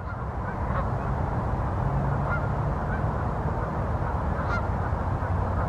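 Canada geese honking, a few short calls spread out over a steady rushing background noise with a low rumble.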